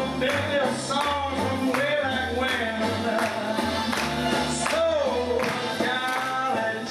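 A recorded song playing: a singer with wavering, vibrato-laden notes over a band, with a steady beat in the bass.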